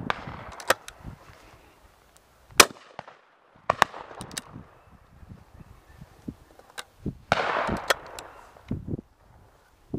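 Shotguns firing on a driven game shoot: one loud, sharp shot about two and a half seconds in, and several fainter, more distant shots before and after it. A brief rush of noise comes around seven seconds in.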